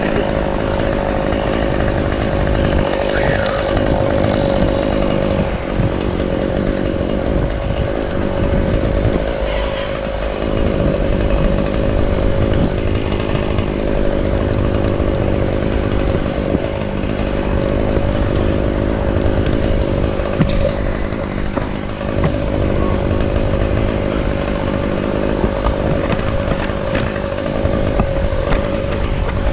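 Chainsaw running steadily for the whole stretch, its motor holding one even pitch.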